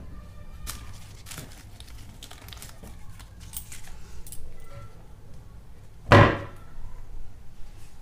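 Handling noise from a handheld phone camera, with scattered small clicks and rustles. About six seconds in comes one loud thump that rings briefly, like a door or an object knocking.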